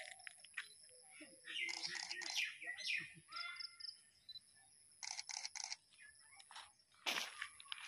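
Birds chirping and calling in short scattered bursts over a steady high-pitched whine, with a sharp click about seven seconds in.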